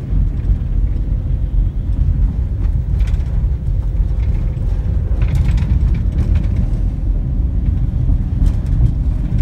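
Steady low rumble of a box truck's engine and road noise heard from inside the cab while driving, with a faint steady whine and a few light clicks.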